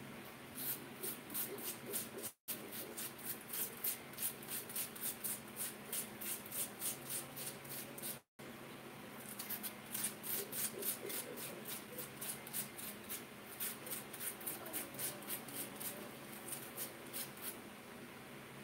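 Raw potato being shredded on a metal hand grater: quick, regular scraping strokes, about three to four a second, with a short break near the middle. The sound cuts out completely for an instant twice.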